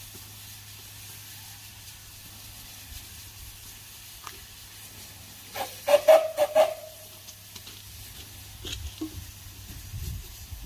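Steam tank engine standing with a steady hiss of steam. About halfway through there is a quick run of four or five loud exhaust chuffs from the chimney as it takes steam. Near the end a low rumble builds as the engine moves.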